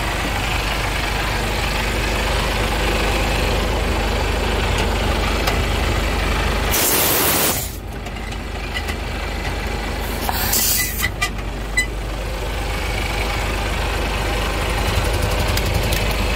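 Truck diesel engine idling steadily, with two short hisses of compressed air from the air-brake system, about seven and ten seconds in, and a few sharp clicks just after the second hiss.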